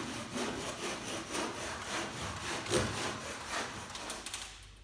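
Repeated scraping strokes, about three a second, of hand work during a fireplace installation, dying away near the end.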